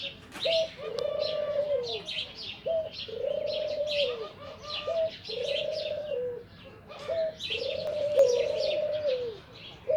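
Doves cooing, a short note followed by a longer one that falls away at its end, repeated about every two seconds, with steady high chirping of small birds over it.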